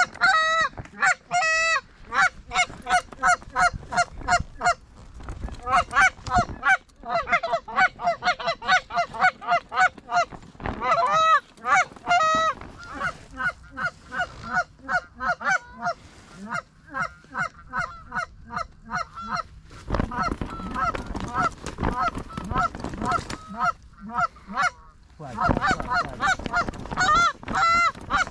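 Canada goose honks and clucks, loud and close, several a second in fast runs with a few short pauses.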